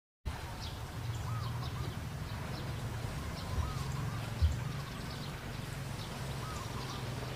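Outdoor ambience: a short warbling call repeating every few seconds and faint high chirps over a low steady rumble, with one thump about four and a half seconds in. The sound drops out briefly at the very start.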